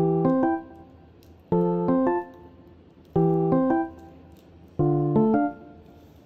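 Background piano music: a short phrase of a few notes played four times, about every one and a half seconds, with short gaps between.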